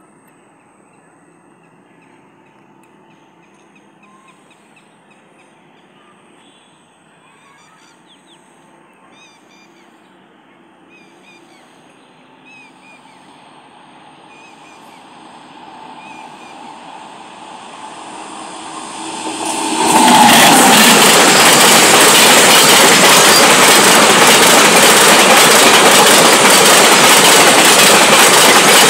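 Container freight train on electrified track: faint bird chirps at first while the train is heard coming from afar, growing steadily louder, then about two-thirds in it reaches the microphone and the wagons pass close by with a loud, steady rumble and rattle.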